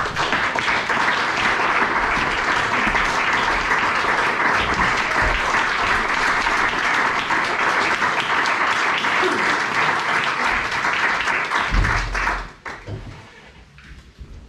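Audience applauding steadily, dying away about twelve seconds in.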